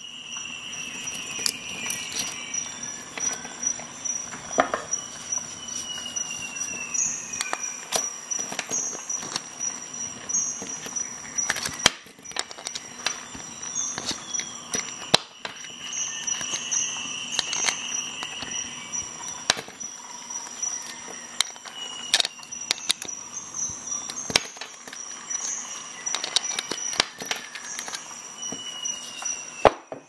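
Metal links of a Leatherman Tread stainless-steel bracelet multi-tool clicking and clinking irregularly as they are handled. Behind them run a steady high whine and short falling chirps every few seconds.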